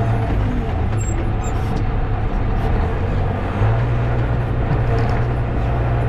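Tractor engine running steadily under load, a constant low hum.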